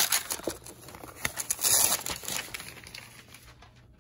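Paper wrapping crinkling and rustling as it is pulled off a cardboard watch box, loudest about two seconds in, then dying away.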